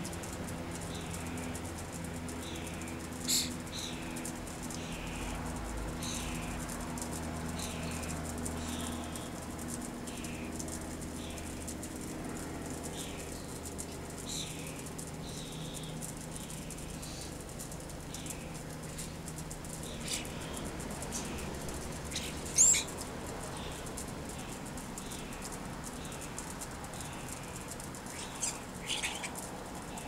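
A bird repeating short falling chirps about once a second through the first half, with starlings flapping their wings as they fly to and from a hanging suet feeder: three sharp flaps, the loudest a little after the middle.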